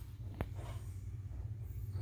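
A steady low rumble with a single sharp click about half a second in.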